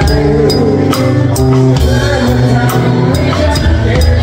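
Live band music: a drum kit played with regular cymbal strokes, about two to three a second, over sustained bass and other pitched instruments.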